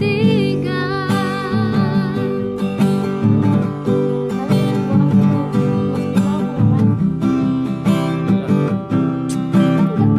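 A woman singing with vibrato over strummed acoustic guitar. Her voice ends about two and a half seconds in, and the guitar keeps strumming chords.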